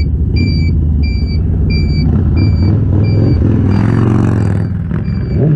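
Motor vehicle running with a steady low rumble, and a short, slightly falling electronic beep repeating about twice a second throughout.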